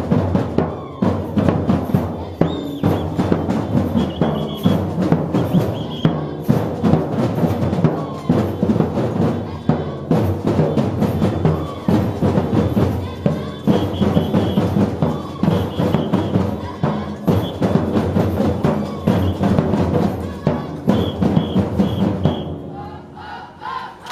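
A street percussion band of large drums, struck with sticks, playing a fast, steady rhythm. The playing dies down near the end.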